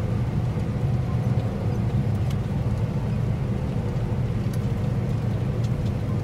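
John Deere combine running steadily, heard from inside the cab as a constant low rumble, with its separator and header engaged while harvesting.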